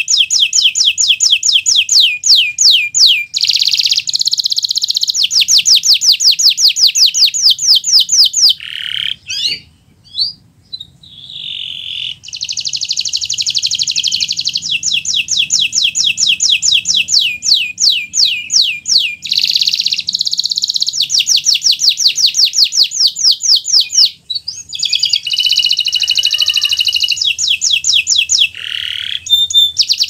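Canary singing in long, rapid trills of repeated high notes, phrase after phrase with brief pauses between them. About a third of the way in, the trills give way to a few gliding, swooping notes.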